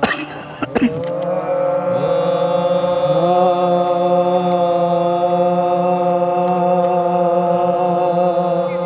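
Men's voices chanting a marsiya (Shia elegy), holding one long, steady note for several seconds. A short noisy burst and a couple of clicks come in the first second.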